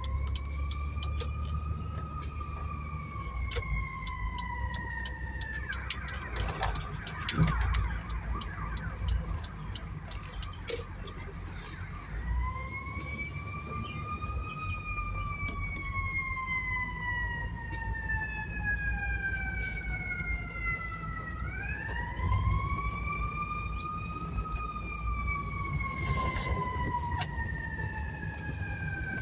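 Cabin sound of a 1988 BMW 325i convertible's 2.5-litre straight-six driving slowly at low revs: a steady low engine and road rumble. Over it, a high whine rises quickly and then falls away slowly, three times.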